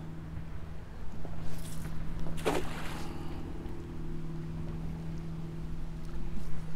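A cast net is thrown. It lands on the water with a splash about two and a half seconds in, and its rope is then hauled back in. A steady low hum runs underneath.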